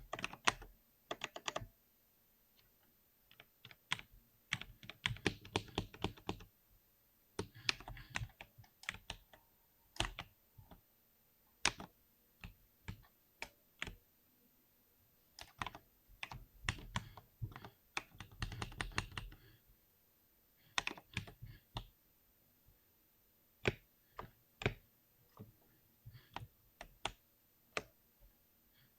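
Typing on a computer keyboard: dense bursts of rapid keystrokes lasting a second or two, with single key presses and short pauses between them.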